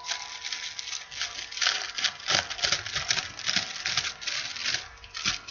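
Tissue paper being unwrapped by hand, crinkling and rustling in quick irregular crackles.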